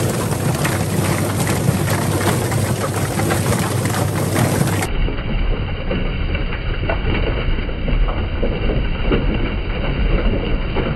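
Drum-type chicken plucker running: the motor spins the rubber-fingered base plate, tumbling scalded chickens against the rubber fingers on the drum wall with a steady rattling clatter and low rumble. The sound turns duller about five seconds in.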